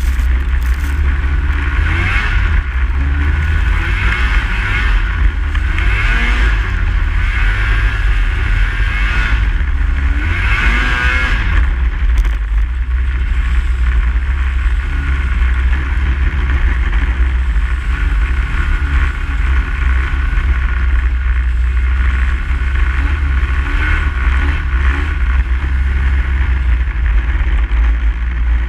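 Snowmobile engine running under way, its pitch rising and falling as the throttle changes, over a constant heavy low rumble.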